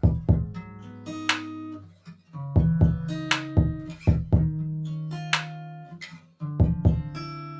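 Background music: plucked guitar notes in short phrases over a bass line.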